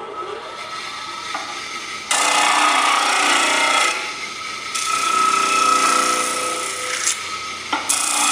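Apex 16-inch disc sander running with a steady whine while a hardened steel bearing race is pressed against the abrasive disc, grinding loudly in three stretches starting about two seconds in.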